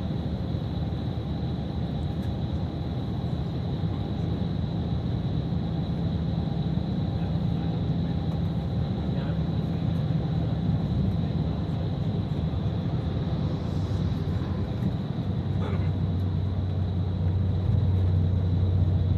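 Bus travelling on the road: a steady low engine and road rumble with a faint constant high whine. About three-quarters of the way through, the engine note drops lower and grows louder.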